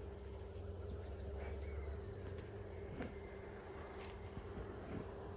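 Faint rural evening ambience: insects trilling in rapid high-pitched pulses over a steady low hum, with a few soft clicks.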